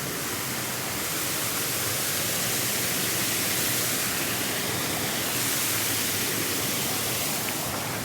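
Steady rush of a waterfall, a little louder from about a second in.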